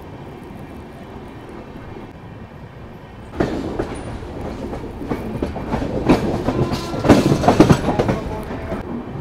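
Passenger train coach's wheels running on the track, heard from the open coach door. A low rumble gives way about three and a half seconds in to a louder, dense clatter of clicks and knocks as the wheels cross the points and crossovers, loudest near the end.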